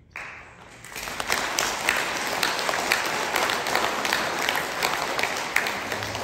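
Audience applauding, starting abruptly and filling out within about a second into dense, steady clapping from many hands.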